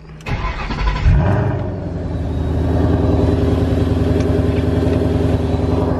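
Supercharged Ford Coyote 5.0 V8 cranking on the starter and catching about a second in, loudest as it fires, then settling into a steady idle.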